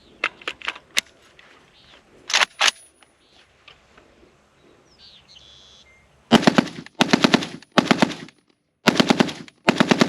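PSA AK-105 rifle in 5.45×39 bump-fired: about six seconds in, five short strings of rapid shots, each about half a second long with brief gaps between. A few separate sharp cracks come earlier.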